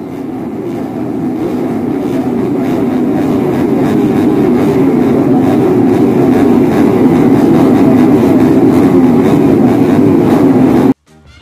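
Logo-intro sound effect: a loud, rough, low rumble that swells over the first few seconds, holds steady, then cuts off abruptly near the end as music begins.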